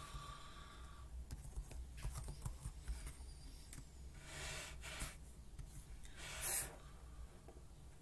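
Faint clicking and rubbing from a Chromebook's keyboard and touchpad being worked while looking through settings, with a short rustle about four and a half seconds in and a louder one about six and a half seconds in.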